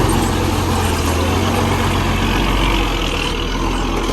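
Heavy diesel engine of earthmoving machinery running steadily, its low note shifting slightly about two and a half seconds in.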